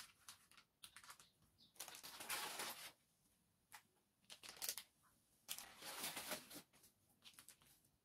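Quiet handling sounds: light clicks and taps, with two longer rustling bursts about two seconds and six seconds in.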